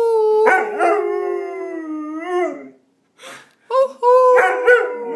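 Six-month-old Greater Swiss Mountain Dog puppy howling: a long howl of about two and a half seconds, then a brief pause and a second howl starting near the four-second mark.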